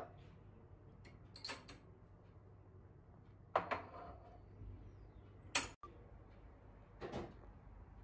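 Ceramic cups being set down on a cabinet shelf: a few light knocks and clinks a couple of seconds apart, one with a short ring.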